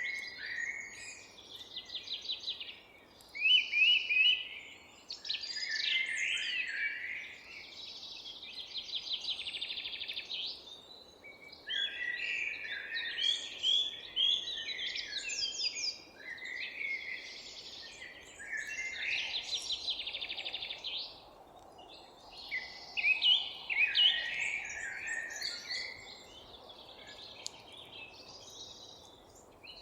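Several songbirds singing in overlapping phrases, with rapid trills and chirps one after another. Underneath is a faint, steady background hum.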